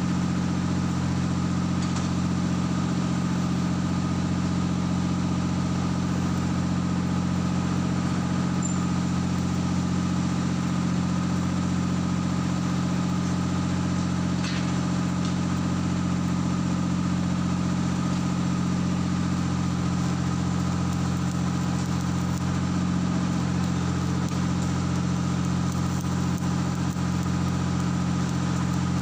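A heavy construction machine's engine running steadily, a constant low drone that keeps the same pitch throughout.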